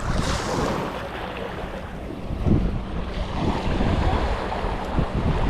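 Ocean surf washing up the beach, with wind buffeting the microphone in gusts.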